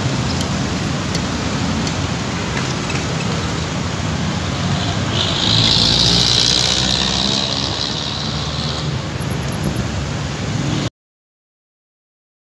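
Dense road traffic heard close by from a bicycle lane: the steady run of car and motorcycle engines and tyres. A loud hiss rises over it for about three seconds midway, then the sound cuts out abruptly to silence near the end.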